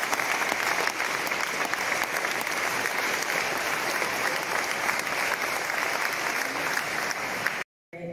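Large audience clapping, a dense, even applause that cuts off abruptly near the end.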